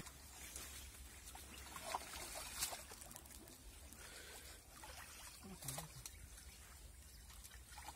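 Faint water trickling and sloshing as men wade through a muddy stream pulling a fishing net, with a few brief splashes about two seconds in and again near six seconds.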